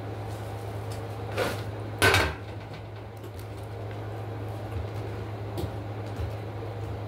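A knock followed about half a second later by a louder, short clatter, as of a lap tray or dish being set down, over a steady low hum.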